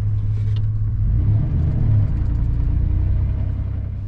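A pickup truck's engine and road noise heard from inside the cab while driving, a steady low rumble. About a second in the engine note shifts and climbs slightly as the truck picks up speed, and the sound eases off near the end.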